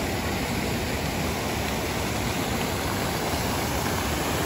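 Many jets of a large fountain spraying and splashing into its pool: a steady, even rush of falling water.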